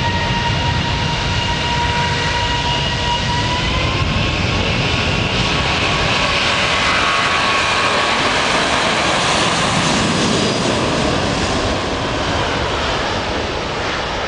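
Airbus A380's four turbofan engines at take-off power: a steady whine that rises slightly in pitch about four seconds in, over a loud roar that swells past the middle and eases a little near the end.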